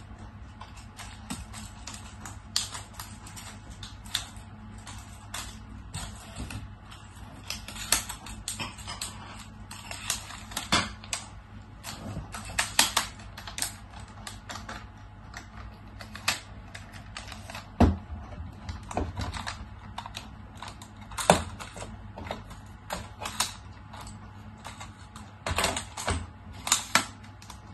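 Irregular clicks, taps and knocks of a lightweight aluminium tripod being handled and adjusted, its plastic leg-lock clips snapping open and shut. Two knocks stand out, about 18 and 21 seconds in.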